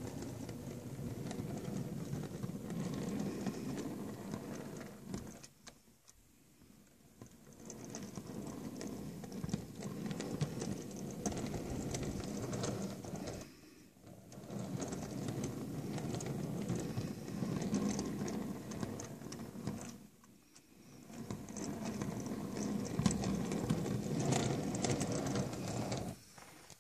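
Metal wheels of 7mm-scale model railway wagons rolling over fine-scale O gauge track and a turnout: a steady rumble with light clicks. Four runs back and forth, each a few seconds long, with short pauses between them.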